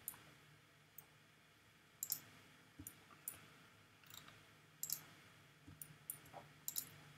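Faint, sporadic clicks of a computer mouse button, a dozen or so single clicks at irregular intervals.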